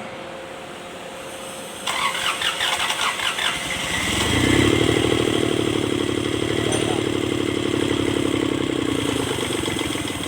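Kubota D905 three-cylinder diesel engine cranked by its starter for about two seconds, then catching and running steadily.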